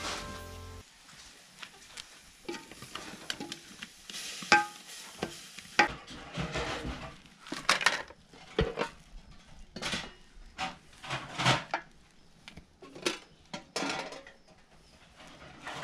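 A metal spoon clinking and scraping against metal pots and plates as food is dished up, in irregular short knocks and scrapes. Background music fades out about a second in.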